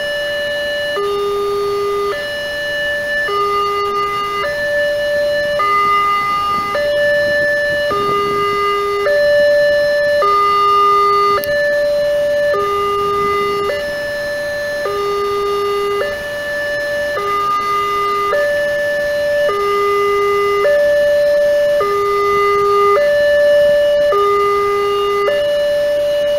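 Wantech railway level-crossing alarm sounding its electronic two-tone warning, a higher and a lower tone alternating about once a second, with the barriers lowered for an approaching train.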